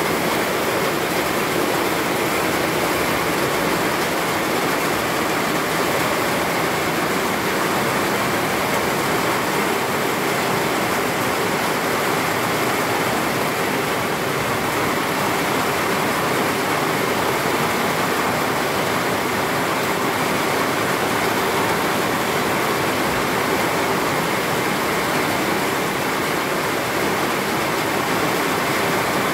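Heavy rain falling, a steady even hiss with no let-up.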